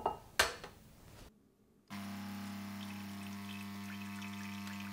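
Two short knocks near the start. About two seconds in, the espresso machine's pump starts running with a steady hum, pushing water through the empty portafilter into a glass for a rinse cycle.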